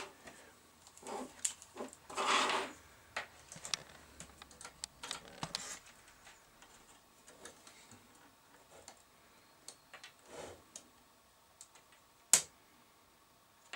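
Scattered small clicks, taps and a brief scrape as test leads and a plastic multimeter are handled. Near the end comes one sharp click, the front-panel rocker switch of the Altai 13.8 V power supply being flicked on.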